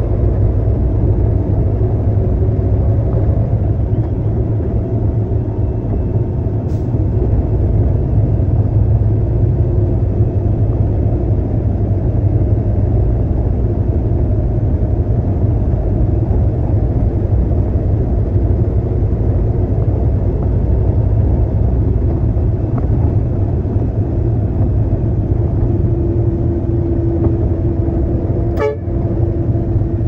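Concrete mixer truck running with a steady low rumble and drone, with a sharp click about seven seconds in and another near the end.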